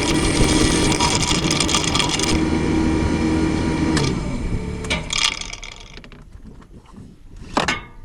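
Mini excavator running with metallic rattling and scraping. About four seconds in its engine note drops, and the noise dies down a second later. One sharp click or knock comes near the end.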